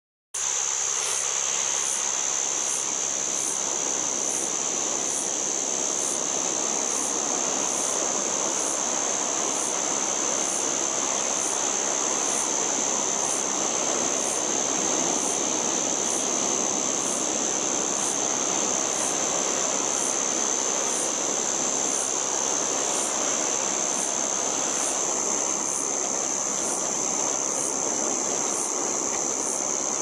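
White drummer cicada (Arunta perulata) calling: a loud, continuous high-pitched buzz that holds steady without a break.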